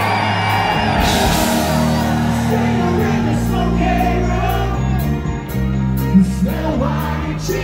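Classic rock band playing, with the lead vocalist singing over a steady beat.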